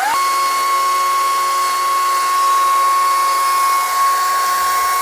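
Chainsaw cutting into a wooden beam: it speeds up at the very start, then holds a steady, high-pitched whine at full speed.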